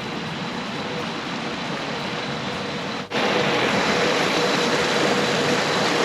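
Steady rush of stream water, with a sudden break about three seconds in, after which it is louder.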